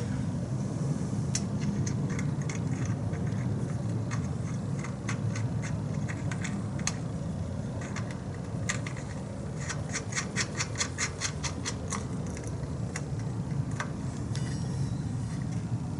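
Metal-on-metal clinks, scrapes and taps of hand work fitting a steel bracket to a trommel's drive sprocket, over a steady low hum. About ten seconds in comes a quick run of even clicks, about five a second.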